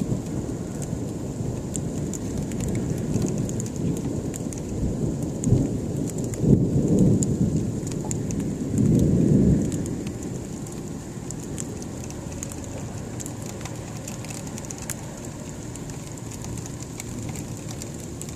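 Thunder rumbling during a winter storm of freezing rain: a low rumble builds over a few seconds, swells with a few sharp jolts around the middle, then dies away. A steady hiss of freezing rain, with fine ticking, runs underneath.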